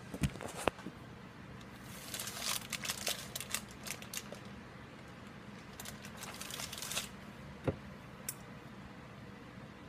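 Thin plastic packaging of pizza crusts crinkling and rustling in two bouts of handling, with a few sharp clicks near the start and a single knock a little after the middle.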